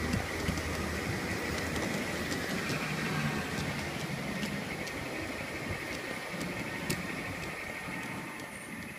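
G scale model train running along its track: a steady rumble and hiss of rolling wheels with scattered sharp clicks, getting somewhat quieter near the end.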